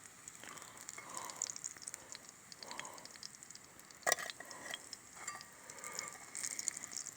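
Chicken nuggets frying in hot oil in a pot over a campfire, sizzling with a steady fine crackle. A single sharp knock comes about four seconds in.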